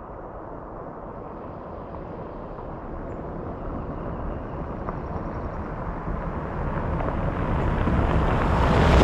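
A vehicle driving: a steady rush of engine, road and wind noise that grows steadily louder.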